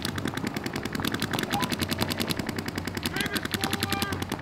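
Paintball markers firing rapid, near-continuous strings of shots, several guns going at once.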